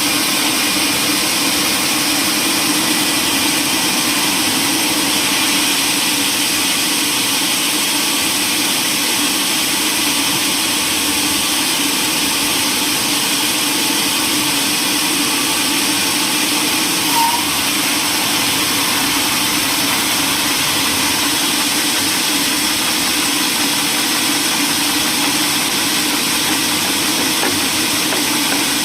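A machine running steadily: a constant mechanical drone with a hum and a strong hiss, unchanged throughout apart from a brief small click about two-thirds of the way through.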